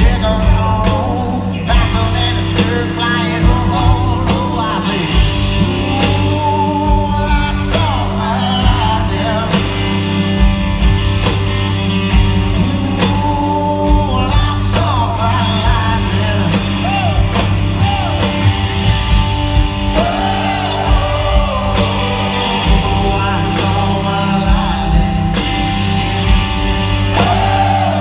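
Live rock band playing loudly in an arena: drum kit, electric guitars and a sung lead vocal, heard from among the crowd with the hall's reverberation.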